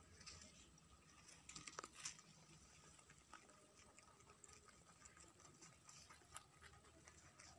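Faint, irregular crunching clicks of domestic rabbits chewing fresh green leaves, with a louder cluster about two seconds in.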